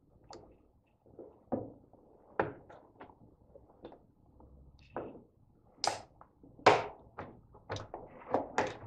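Screwdriver levering the wire retaining spring off a washing machine door seal: irregular clicks, taps and scrapes of metal against the plastic front panel and rubber. The sharpest clicks come about two-thirds of the way through.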